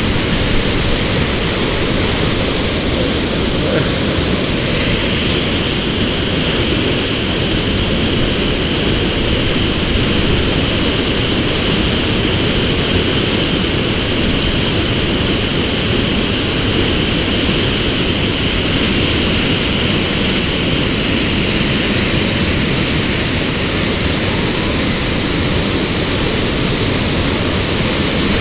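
Large whitewater rapid on a muddy river, a loud steady rushing of churning water.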